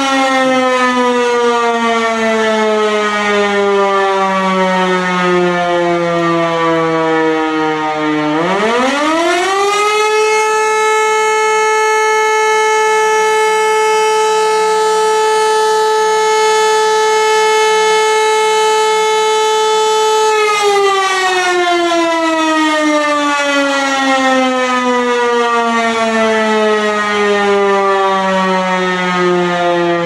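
E57 electromechanical civil-defence siren sounding in a siren test. Its pitch slides downward as the rotor winds down, then about eight seconds in it spins back up to a steady howl. It holds that howl for about ten seconds, then winds down again in a long falling glide.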